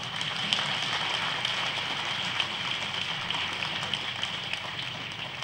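Audience applauding: a steady patter of many hands clapping, easing off slightly near the end.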